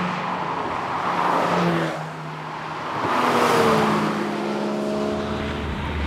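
Two Porsche flat-six sports cars, a 911 Turbo and a Cayman GT4, driving past one after the other. Engine and tyre noise swells and fades twice, and the second pass has its engine pitch falling as it goes by.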